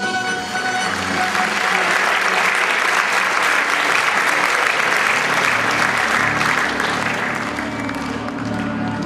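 Audience applauding in a large hall, building up about a second in as the music stops and fading near the end as new music comes in underneath.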